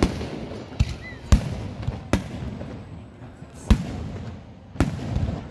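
Aerial fireworks shells bursting overhead: about six sharp bangs at irregular gaps, the loudest a little over a second in, with crackling and rumble between them.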